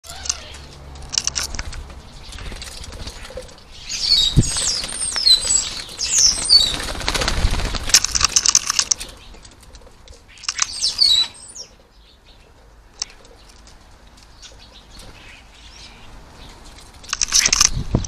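European starlings flapping and scrabbling at a hanging seed feeder, with bursts of high chirping calls between about four and nine seconds in, again near eleven seconds, and near the end. A sharp knock about four seconds in.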